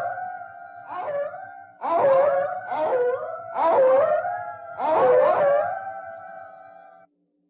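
Canine howls: several overlapping howls, each starting sharply and sliding down into a held note, roughly one a second. They fade and then cut off shortly before the end.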